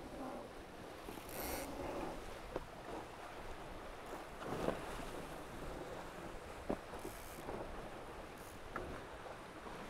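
Water rushing and splashing along a Tornado racing catamaran's hulls under sail, with wind on the microphone. There are a few brief hissing surges of spray and several short knocks.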